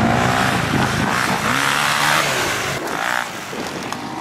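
Dirt bike engine revving up and down, its pitch rising and falling, then dropping away about three seconds in.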